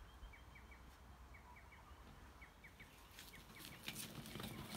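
Faint bird chirps, short notes in twos and threes. From about three seconds in they are joined by a run of light clicks and rattles from a wheelbarrow being pushed across grass.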